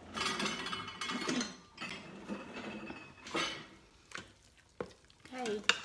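Kitchen dish handling: a small glass bowl is fetched and a metal spoon scoops and scrapes rice pudding out of a stainless steel Instant Pot inner pot. Several clinks, the sharpest just before the end.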